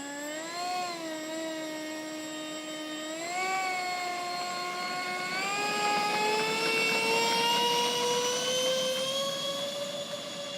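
Electric motor and propeller of a radio-controlled model aircraft whining, its pitch wobbling briefly near the start and then rising gradually and getting louder over several seconds.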